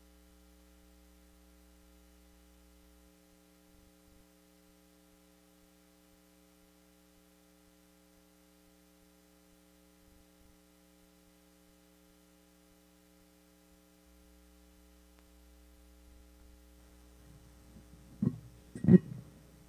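Steady electrical mains hum, a low buzz with several steady tones. Near the end come two sharp thumps about a second apart, the second louder.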